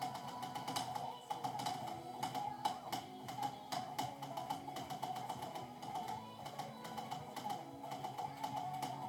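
Typing on a Genius mechanical keyboard with black switches: quick, irregular key clacks, several a second, with music playing underneath.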